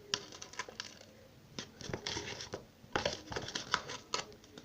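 Hands kneading and pulling a lump of sticky glue-and-borax slime: a run of small crackling, tearing sounds, sparse at first and coming thick and fast from about a second and a half in. The slime is over-stiffened with borax and keeps breaking apart.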